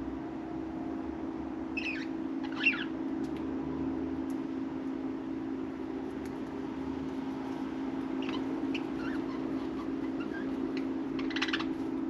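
Budgerigars chirruping in short, scattered chirps, two about two seconds in and a quick cluster near the end, over a steady low hum.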